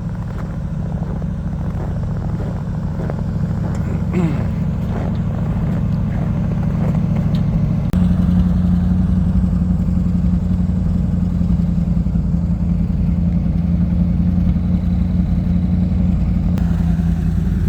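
Engine of a vintage Bombardier snow bus running steadily. About eight seconds in, its note shifts and gets a little louder.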